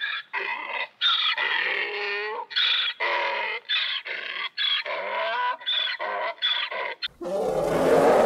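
Donkey braying: a long run of rhythmic hee-haw calls, about two a second, alternating between higher and lower notes. About seven seconds in it cuts off and a different, noisy sound takes over.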